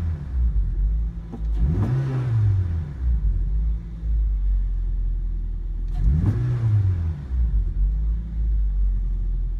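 Toyota Celica GT-S's 2ZZ-GE 1.8-litre four-cylinder engine, stationary, revved twice in quick throttle blips, about a second and a half and six seconds in, each rising and falling back, idling in between. Heard from inside the cabin.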